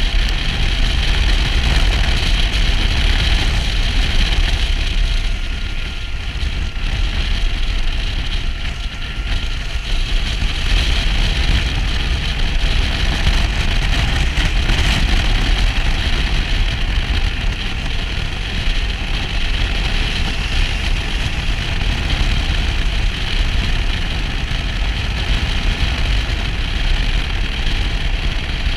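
Motorcycle engine running at road speed under a steady rush of wind on the microphone, easing off for a few seconds about a quarter of the way in before picking up again.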